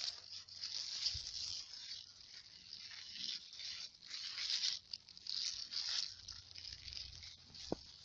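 Swiss chard leaves rustling and tearing as they are picked from the plant, in irregular scratchy bursts, with one sharp tap near the end.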